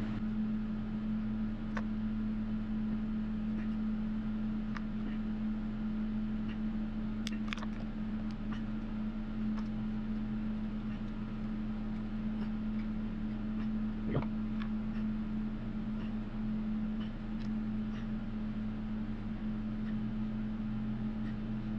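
A steady low hum throughout, with a few faint clicks and taps of hand tools on a wooden cutting board as modelling clay is shaped; the clearest taps fall about 7 s and 14 s in.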